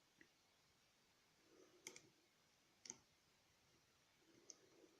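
Faint scraping of a dimple pick working the pins of a Yale six-pin dimple euro cylinder, with a few sharp metallic clicks at about two, three and four and a half seconds in. These are pin clicks, one of which the picker takes for pin 4 either setting or oversetting.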